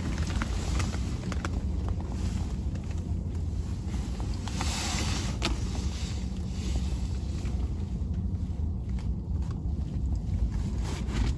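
Wind buffeting the microphone as a steady low rumble, with a few light clicks on top.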